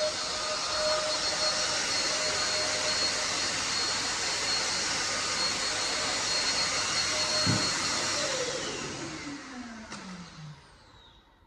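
Handheld atomiser running, its motor and airflow making a steady loud hiss with a whine as it sprays a virucide mist. About seven and a half seconds in there is a click, and the motor winds down with a falling whine over the next couple of seconds until it stops.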